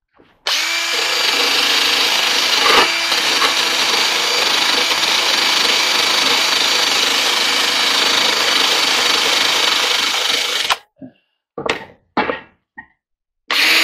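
Cordless drill running steadily with a small attachment pressed against the dryer's sheet metal, scrubbing off old excess sealer. It stops about eleven seconds in, a few short sounds follow, and it starts again near the end.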